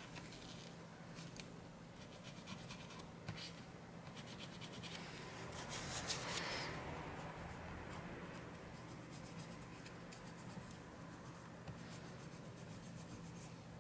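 Faint scratching and rubbing of alcohol-dampened tissue wiped over a laptop CPU die, cleaning off old thermal paste, with small scattered clicks.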